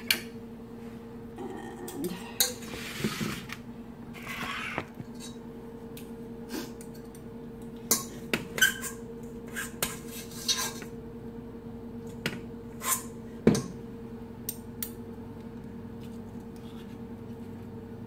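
Metal tablespoons clinking and scraping against a stainless steel mixing bowl while cookie dough is scooped out and dropped onto a baking sheet: a dozen or so sharp clinks, the loudest about 13 seconds in, with short scraping passes around 2 to 5 seconds. A steady low hum runs underneath.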